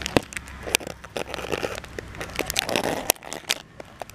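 Irregular sharp clicks and crackles close to the microphone, with a softer rustle in between: handling noise as the camera moves against and past a chain-link fence.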